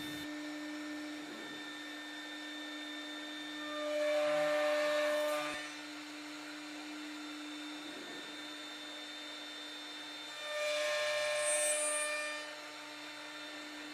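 A CNC router spindle runs with a steady hum while the straight dovetail bit mills the dovetail tails in the wood. Twice, for about two seconds each, the cut grows louder as the bit passes through the stock.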